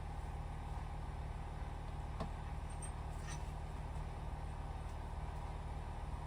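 Diesel engine of a farm tractor or loader idling with a steady low rumble, with a couple of faint clicks about two and three seconds in.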